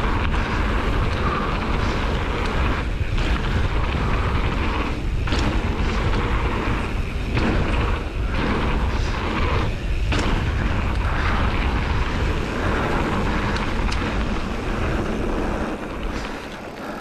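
Wind rushing over the camera microphone with tyre noise from a mountain bike running fast on a hard-packed dirt trail, a steady rumbling roar with a few brief dips, dropping off near the end as the bike slows.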